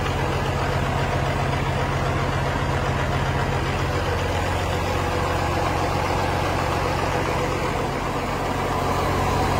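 Caterpillar C18 inline-six diesel engine running steadily at idle on a test run, with an even low hum throughout.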